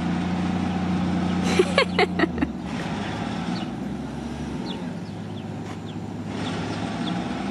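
Road traffic running past: a steady low vehicle rumble that fades out about two and a half seconds in. A quick cluster of small clicks and clinks comes around two seconds in, with a few faint high chirps after.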